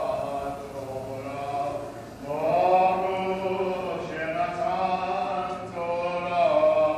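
Slow, chant-like vocal music: long held sung notes that slide gently between pitches, in phrases of about two seconds, with no clear beat.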